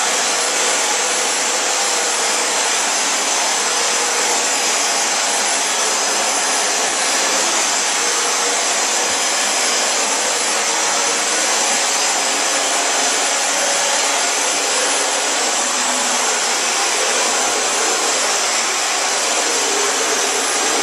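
Dyson DC40 Animal ball upright vacuum cleaner running steadily while it is pushed back and forth over a laminate floor.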